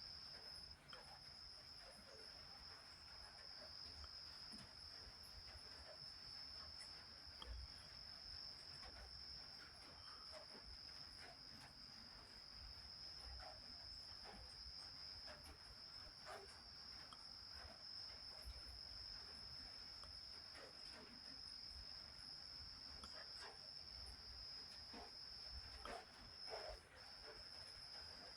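A cricket's continuous high trill, steady and faint, breaking off briefly about a second in and again near the end, with scattered faint clicks beneath it.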